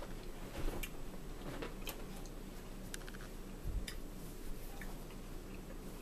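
Light, sharp clicks about once a second, not quite evenly spaced, over a low steady hum.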